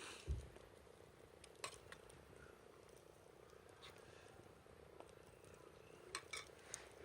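Near silence: a faint steady hum, with one short low thump just after the start and a few light clicks, the last of them near the end.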